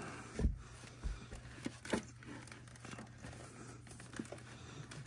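Hands handling and posing a sixth-scale He-Man action figure: a few light knocks of plastic parts in the first two seconds, then quieter rustling and one more soft knock near the end.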